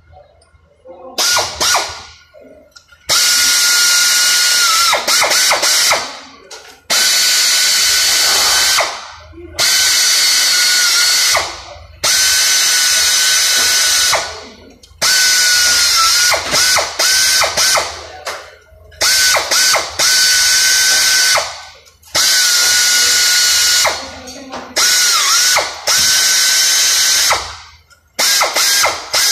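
Air ratchet driving bolts on the underside of an automatic transmission through a long extension, in about nine bursts of two to three seconds each: a steady motor whine over air hiss that dips for a moment as a bolt takes up load.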